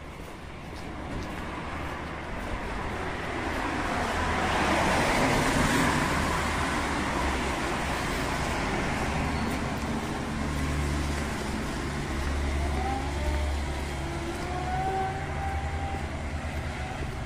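A car passing on the wet street, its tyres hissing on the wet asphalt, building to loudest about five seconds in and then fading. A low, steady engine hum from traffic follows.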